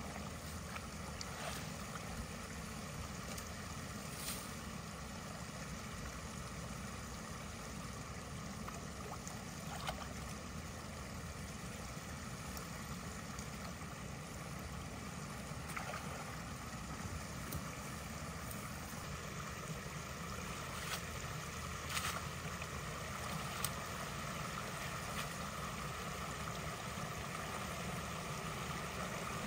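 Steady rush of creek water flowing through a culvert that is being cleared of a beaver dam, with a few faint sharp clicks or snaps now and then.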